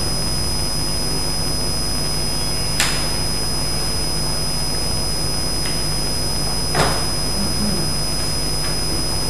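Steady hiss and low electrical hum from the recording's microphone system, with a thin high whine. Two short knocks sound, about 3 seconds and 7 seconds in.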